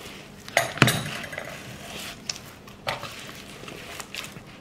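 Steel potato masher pressing boiled taro in a plastic bowl, with soft squashing and a handful of sharp clinks, the loudest about a second in.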